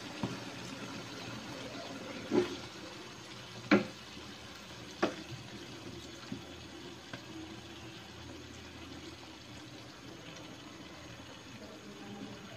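Evaporated milk poured from a can in a steady stream into a hot pan of chicken and mushrooms. Three sharp knocks, between about two and five seconds in, stand out as the loudest sounds.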